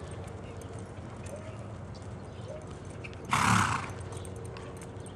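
Horse giving one short, loud snort, a noisy blow through the nostrils about three seconds in, over faint hoofbeats in the arena dirt as the mare lopes.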